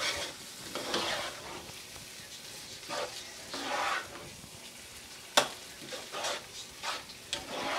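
Metal spatula stirring and scraping minced meat and onions frying in a nonstick pan, over a low sizzle, in irregular strokes. One sharp click about five seconds in.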